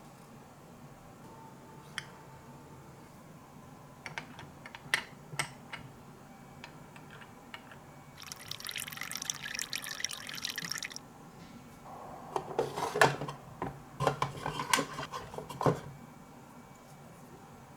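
Added kitchen sound effects: scattered small clicks and clinks, a hiss lasting about three seconds around the middle, then a run of clinks and knocks.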